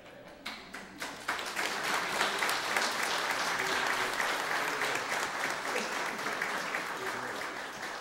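Congregation applauding. A few scattered claps about half a second in grow into full applause that tapers off near the end.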